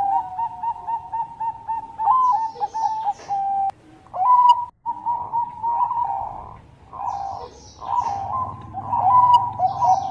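Bangkok-type zebra doves (perkutut) cooing in rapid runs of short, hooked notes. More than one bird calls over the others, with a brief break about four and a half seconds in.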